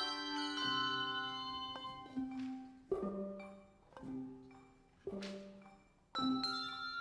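Instrumental music of struck, ringing bell-like notes, a new chord or note sounding about once a second and dying away between strikes.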